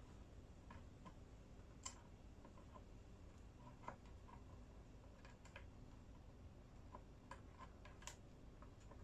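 Near silence with a few faint, scattered clicks and taps of small objects being handled at a workbench, the loudest about two, four and eight seconds in.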